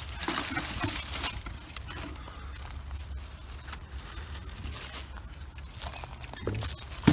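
Rustling and crinkling of dry leaves and litter being handled and stepped over among creek-bed rocks, in short irregular bursts, with a sharp knock near the end.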